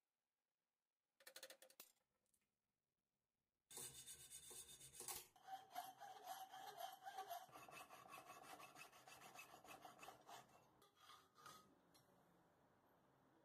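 Hacksaw blade sawing back and forth through a thin metal plate clamped in a vise: faint, rapid rasping strokes that start about four seconds in and stop about eight seconds later.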